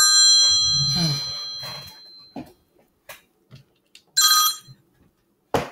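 A mobile phone ringtone: a chord of steady high tones that fades away over the first two seconds, then rings again briefly about four seconds in. A sharp click near the end.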